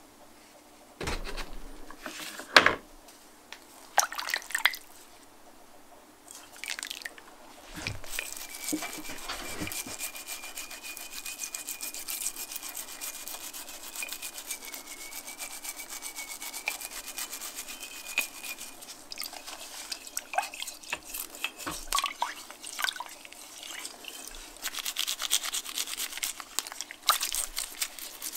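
A ribbed red lamp lens being scrubbed and scraped underwater in a bucket, with a scraper blade and a small stiff brush: a rapid, wet scratching and rubbing. A few sharp knocks come in the first few seconds, before the scrubbing starts.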